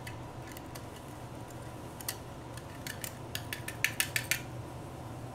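Metal utensils clinking against a small ceramic bowl while spices are measured in: one click about two seconds in, then a quick run of sharper clinks over the next second and a half.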